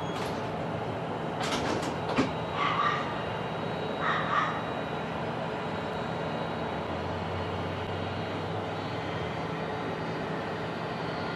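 Front-loader garbage truck's diesel engine running as it sets a steel dumpster down, with several sharp metal clanks, the loudest about two seconds in, and two short harsh squawks soon after; the engine then pulls harder as the truck drives away.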